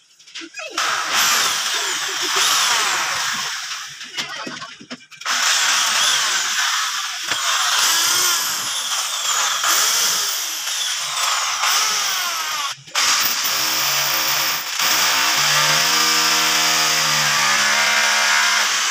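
Electric drill boring holes through a PVC door frame against a concrete wall. It runs in repeated bursts, its whine rising as it spins up and falling as it slows, with one longer steady run near the end.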